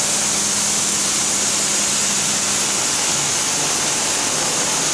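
Automatic car wash running: rotating brushes scrubbing along a car's side under water spray, a steady hissing wash, with a faint low machine hum that drops in pitch about three seconds in.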